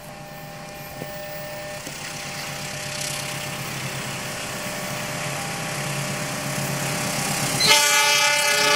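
KAI CC206 diesel-electric locomotive hauling a passenger train, its engine and running noise growing steadily louder as it approaches. Near the end its horn sounds loud, a chord of several notes.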